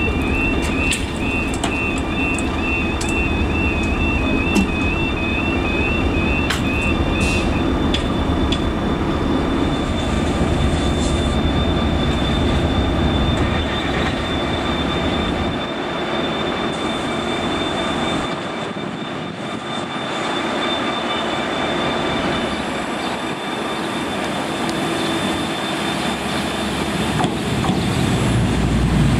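Level crossing alarm sounding a repeating two-tone warble for the first several seconds over the low rumble of diesel trains. The rumble drops away about halfway, and near the end a Northern Ireland Railways Class 4000 diesel multiple unit approaches the crossing, its sound building.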